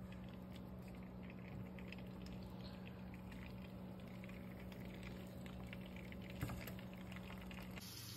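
Butter faintly sizzling and crackling in a nonstick frying pan, over a steady low hum. There is one sharp knock about six and a half seconds in.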